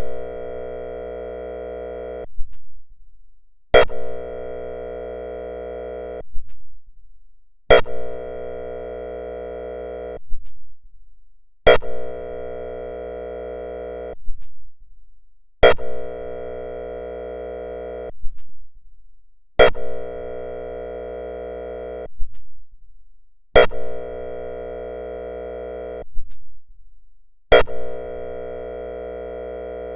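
Whelen ESC-864 electronic siren's airhorn tone sounding in repeated blasts. Each blast starts with a sharp click, holds a steady horn tone for about two and a half seconds, then cuts off, and the next comes about every four seconds.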